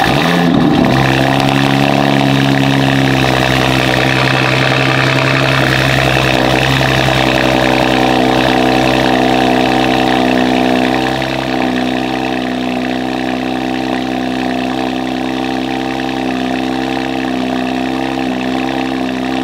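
2023 Audi RS5's twin-turbo 2.9-litre V6 idling on a cold start through 034 Motorsport high-flow catted downpipes and an AWE Touring exhaust. The start-up flare settles within the first few seconds into a loud, steady high idle. About 11 seconds in, the idle drops slightly in pitch and gets a little quieter.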